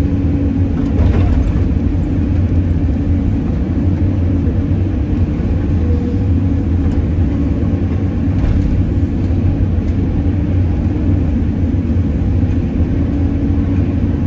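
CAT 320D excavator's six-cylinder diesel engine running steadily, heard from inside the cab with a deep, even hum, while the hydraulic arm works the bucket to level gravel fill.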